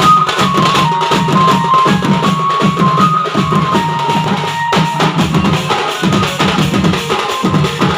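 Band playing loud, fast drumming, with a heavy bass drum beat and snare strokes, under a melody of held notes that step up and down.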